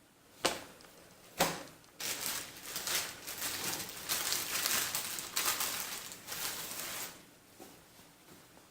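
Old, fragile paper being handled: two short crinkles, then about five seconds of continuous rustling and crinkling as the pages are moved, dying away near the end.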